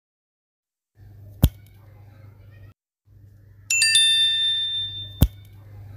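Sound effects for an animated like-and-subscribe reminder. A sharp click comes about a second and a half in. Near the middle a bright bell-like ding with several ringing tones sounds for about a second, and another click follows, all over a faint low hum.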